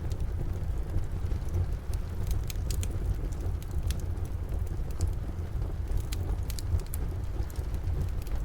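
Wood fire crackling in a fireplace, with scattered sharp pops, over a steady low rumble of rain.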